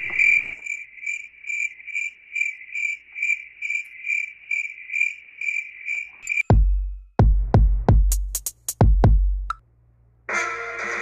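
Cricket chirping sound effect, the stock 'awkward silence' crickets: a steady, even chirp repeated a little over twice a second for about six seconds. It is followed by a run of about six deep booming hits with sharp clicks, and music comes in near the end.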